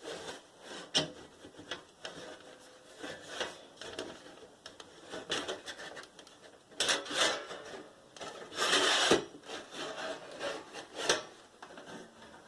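Casing cover of an Amstrad Sky set-top box being worked loose and slid off by hand: irregular scraping and rubbing with a few sharp clicks, the longest scrape about nine seconds in.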